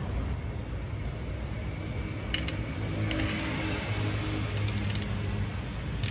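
Ratchet wrench clicking in short quick runs as it is worked on a bolt on a Yamaha Serow 250's engine side cover, with a sharper metallic click at the very end.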